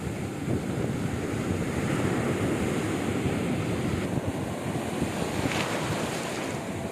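Sea surf washing onto a beach in a steady rush, with wind buffeting the microphone.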